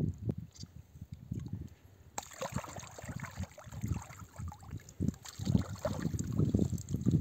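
Hands splashing and scooping in shallow lake water, with water trickling and pouring back, starting suddenly about two seconds in, over an uneven low rumble.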